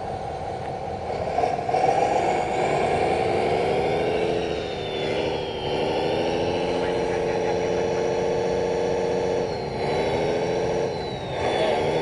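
1/14 scale RC Mercedes-Benz SK dump truck driving uphill with a load of dirt: a steady drive whine that rises and falls in pitch with the throttle. It dips and picks up again twice.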